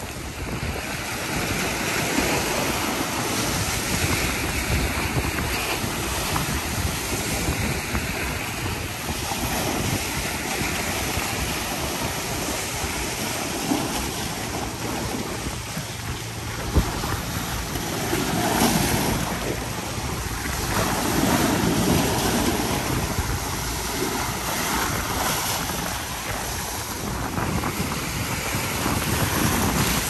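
Sea waves washing and splashing over a rocky shore, swelling and easing as each wave comes in, with wind buffeting the microphone.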